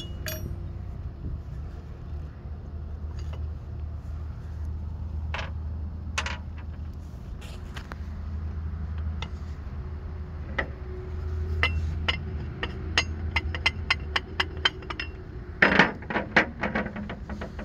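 Sharp metallic clicks and taps over a steady low rumble. They come singly at first, then quicken into a fast run of clicks, with a louder short clatter near the end.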